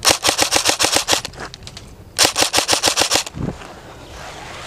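Airsoft rifle firing two bursts, each about a second long, at roughly nine shots a second, with a pause of about a second between them.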